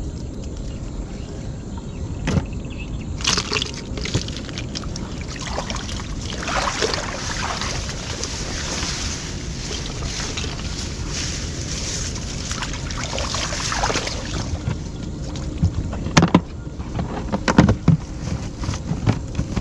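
Water sloshing and splashing as a person wades in a shallow pond and handles a fish trap and a plastic bag. A steady low rumble lies underneath, and a run of sharp splashes or knocks comes near the end.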